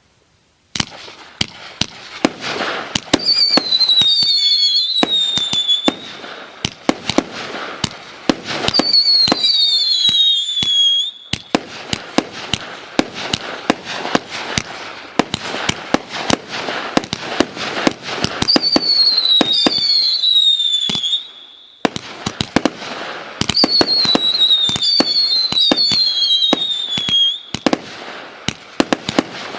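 Megapyro Virtuoz MB26 firework battery (multi-shot cake) firing: a rapid run of shots and crackling bursts, starting about a second in. Four times, several whistles at once sweep downward in pitch over the shots.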